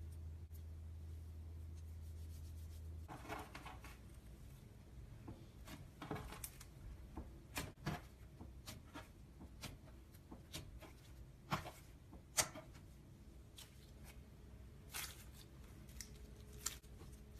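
Slime being worked by hand close to the microphone, giving scattered faint clicks and crackles that begin about three seconds in.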